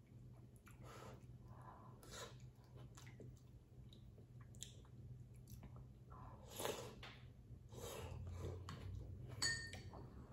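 Close-mouth eating sounds of soft tofu stew taken from a spoon: soft slurps and chewing in short irregular bursts. There is a short clink near the end.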